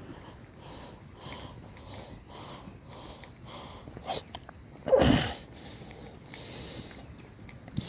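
Insects chirring steadily in a high, even drone with a pulsing beat about twice a second. A short loud sound, a thump or rustle, comes about five seconds in.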